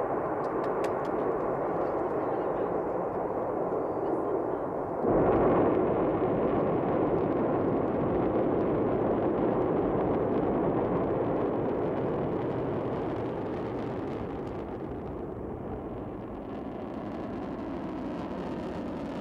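Roar of a Soyuz rocket's engines at lift-off: a steady noise that jumps abruptly louder about five seconds in, then slowly fades over the last several seconds.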